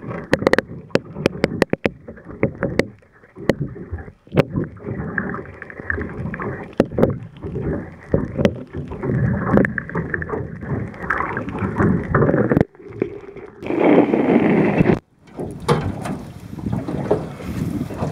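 Muffled sloshing and rushing of water around a camera held under the surface, with many sharp clicks and knocks. About three-quarters of the way in the sound opens up and becomes fuller, as of the camera coming out into open air with wind on the microphone.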